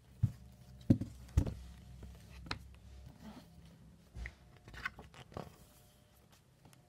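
A hardcover picture book being handled and its page turned. It gives three sharp knocks in the first second and a half, then softer scattered taps and paper rustles.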